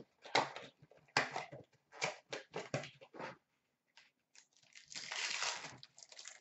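Hockey card packs and box being handled and torn open by hand. A run of short crinkles and rips over the first three seconds, then a longer tearing rustle about five seconds in as a pack wrapper is ripped open.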